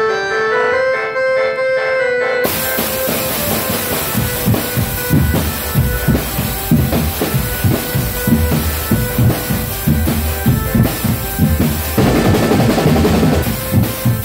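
Drum band music. A short melodic phrase opens, then about two seconds in the marching drums come in loud, snare and bass drums beating steadily under a held note, thickening briefly near the end.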